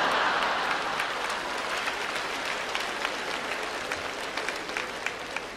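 Theatre audience applauding and laughing. It is loudest at the start and slowly dies away into scattered claps.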